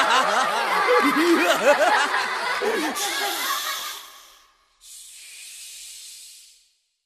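Several voices laughing together, fading out over about four seconds, followed by a short steady hiss lasting about two seconds.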